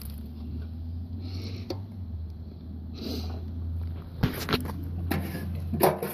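Small gas engine of a 2-inch wood chipper running with a steady low hum, with several sharp knocks and clatters in the last two seconds.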